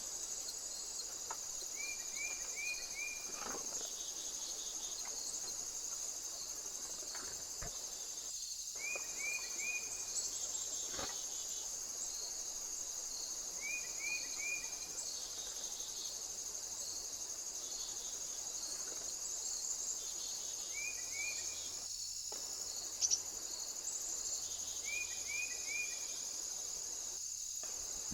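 A steady high-pitched insect chorus trilling without a break. Short groups of three or four quick chirps recur every four to six seconds, with a few faint clicks.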